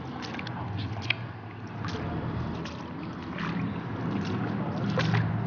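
Footsteps splashing through shallow water over a concrete channel bed, a few irregular splashes at a time, over a steady low hum.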